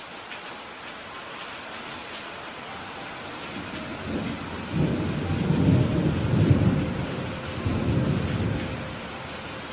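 Steady rain hissing, with a long roll of thunder that builds about three and a half seconds in, rumbles loudest through the middle, and dies away near the end.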